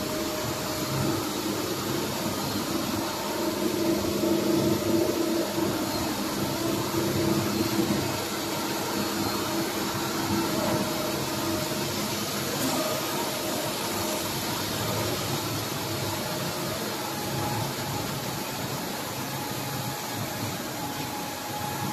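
Steady running noise of machine tools on a bearing production floor: an even mechanical hum and hiss with a few faint steady tones.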